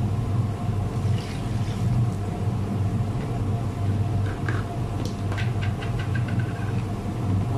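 A steady low mechanical hum, like a kitchen fan or compressor, runs throughout. A little over halfway there is a quick run of light clicks or taps, about five in just over a second.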